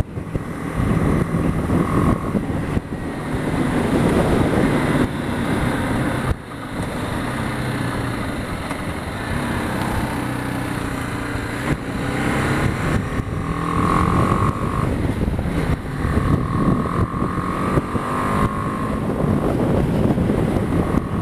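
BMW G 310 GS single-cylinder engine running under way, with wind noise over the helmet microphone. Its note falls and rises about halfway through as the bike slows and pulls away. The engine is brand new and being run in, held to 5,000 or 6,000 revs.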